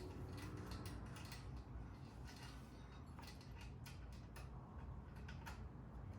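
Faint, scattered clicks and light taps of small metal parts being handled and fitted by hand, over a low steady hum.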